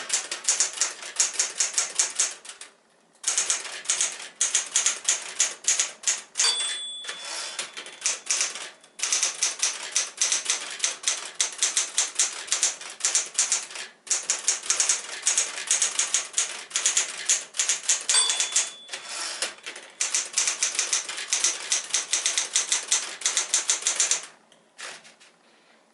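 1964 Smith-Corona Galaxie II manual portable typewriter being typed on in fast runs of key strikes, with a few short pauses. Its margin bell rings twice, and the typing stops near the end.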